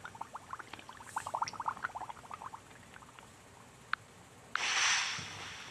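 Orca (killer whale) calls: a rapid run of short chirps and clicks that thins out after about two and a half seconds. About four and a half seconds in, a sudden rush of water-like noise starts and fades over about a second.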